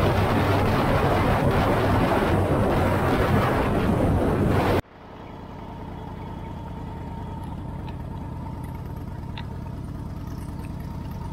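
Motorcycle at highway speed: loud wind rush over the engine for about five seconds. It cuts off suddenly to the quieter, steady running of the motorcycle engine at low speed.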